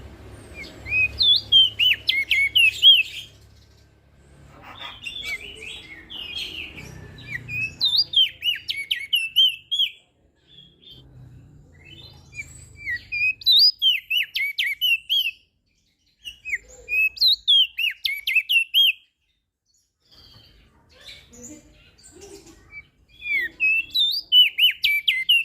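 Opior jambul (crested white-eye) singing: repeated bouts of rapid, high twittering notes, each lasting two to three seconds with short pauses between. A faint low rumble runs under the song through the first half.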